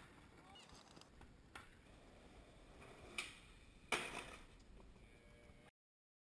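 Skateboard on concrete: a few sharp clacks of the board over faint rolling, the loudest about four seconds in. The sound cuts off to dead silence near the end.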